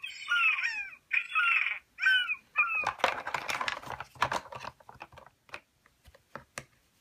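Quick high yapping barks like a small dog, several in the first three seconds, followed by hard plastic toy pieces clacking and rattling as they are picked up and set down.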